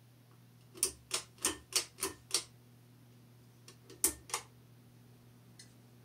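Pull-chain switches on a Harbor Breeze Vue ceiling fan clicking as the chains are pulled: a quick run of six sharp clicks, then after a short pause two more. A faint low hum from the running fan motor sits underneath.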